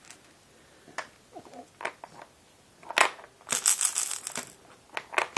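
Plastic baby rattle with beads inside clear balls: a few separate clicks, then rattling, shaken hard from about three and a half seconds in and again near the end.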